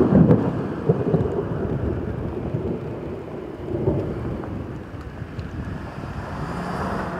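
Thunder rumbling from a supercell: a loud rumble at the start, rolling on with further swells about a second and four seconds in, then slowly easing off.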